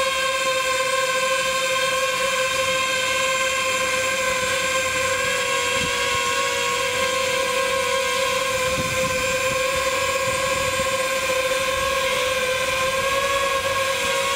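DJI FPV drone hovering, its motors and propellers giving a steady, high-pitched whine made of several stacked tones that waver only slightly.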